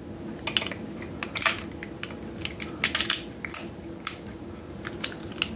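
Irregular sharp metallic clicks and clacks of a Remington 1858 revolver's parts as a .22 conversion cylinder is fitted into the frame and locked in place, about a dozen in all.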